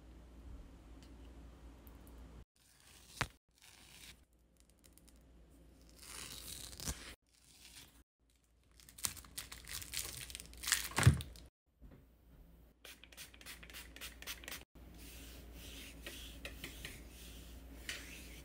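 Hard wax being worked on bare skin: spread with a wooden spatula, then a hardened wax strip pulled off the leg, with the loudest tearing, crinkling sound about 11 seconds in. Near the end, skin is rubbed by hand.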